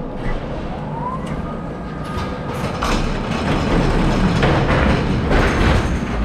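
Electric pallet truck driving on a concrete floor with empty forks: the drive motor whines, gliding up and down in pitch, over the rumble and rattle of the wheels and forks, with a few knocks about halfway through and near the end.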